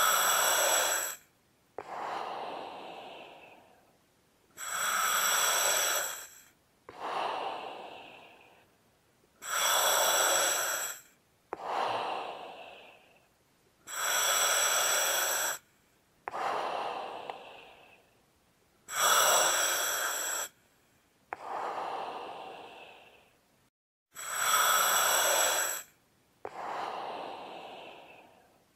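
Slow, deep breathing: a loud inhale lasting about a second and a half, then an exhale that falls and fades away, repeating about every five seconds, six times over.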